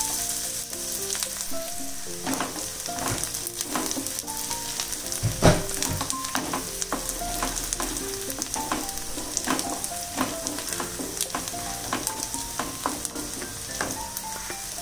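Chopped onions sizzling in hot oil in a kadhai while a wooden spatula stirs and scrapes them against the pan, with one louder knock of the spatula about five and a half seconds in. The onions are being fried until light brown.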